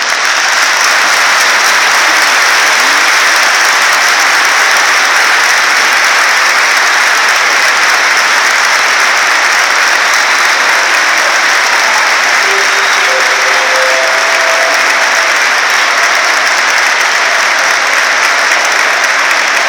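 A large stadium crowd applauding, a loud, steady wash of clapping.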